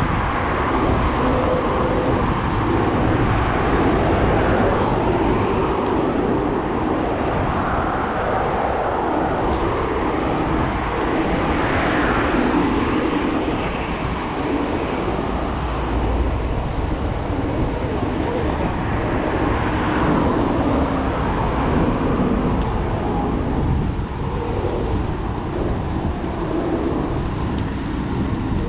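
Steady road traffic noise with cars passing now and then, mixed with wind rush on the microphone of a camera riding on a moving bicycle.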